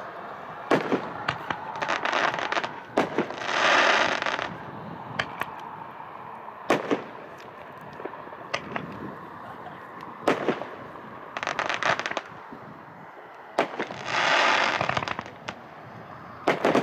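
Mega Bomb, a 3-inch 9-shot consumer fireworks cake, firing its shots: a string of sharp bangs, several of them followed by about a second of dense crackling.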